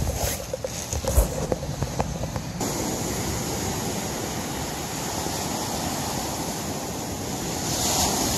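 Small waves washing onto a cobble beach: a steady surf, with one wave breaking a little louder near the end. Before it, for the first two and a half seconds, scattered knocks and rustling from the camera being handled.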